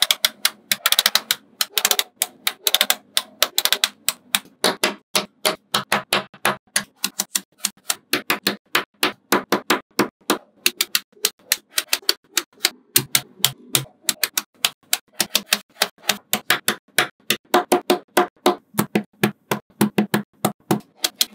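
Small magnetic balls snapping together one after another: a quick, steady run of sharp clicks, about four a second.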